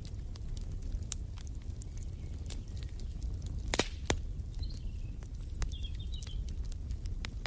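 Wood fire crackling in a fireplace: many sharp pops and snaps over a low steady rumble, with one louder pop about halfway through. Faint bird chirps come in twice in the second half.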